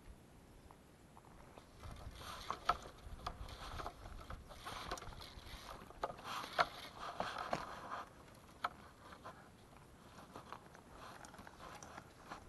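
Water splashing and sloshing close by, mixed with small clicks and knocks, from about two seconds in until about eight seconds in, then fainter.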